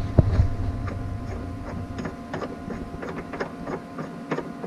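Bronze keel-cooler fitting being tightened down by hand inside a boat's hull: a run of short, light clicks, about two or three a second, over a faint steady hum.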